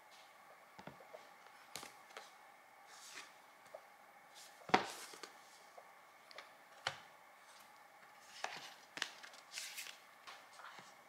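Apple Magic Keyboard's cardboard box and packaging being handled and opened: scattered light knocks and taps with brief rustles. The loudest knock comes a little under five seconds in.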